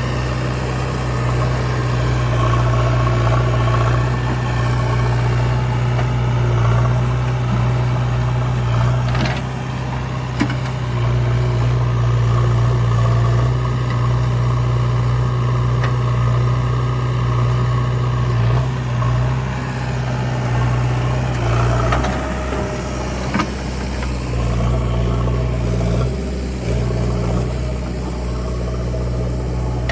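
Heavy diesel engine running with a steady low drone, a few brief knocks, and some change in the engine note about two-thirds of the way in.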